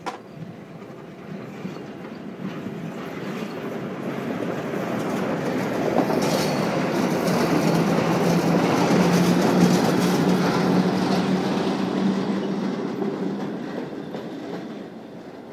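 Two coupled electric locomotives passing close by: a rail rumble that swells, peaks about halfway through and fades away, with a steady low hum at its loudest.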